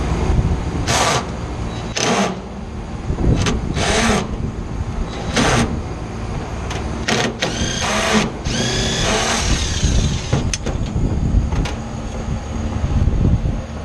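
Cordless drill-driver run in about eight short bursts at the base of a compressor, undoing its mounting screws. The longest burst, near the end, has a rising motor whine. A steady low hum runs underneath.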